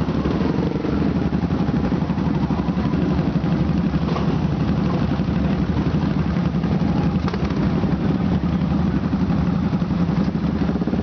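Several motorcycle engines idling together, a steady low running sound.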